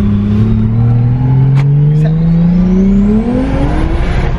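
Toyota 1JZ turbocharged straight-six in a JZX110 Mark II accelerating hard through a gear, heard from inside the cabin. The engine note climbs steadily in pitch, and a rising high turbo whistle joins it in the second half, a sound described as like a jet.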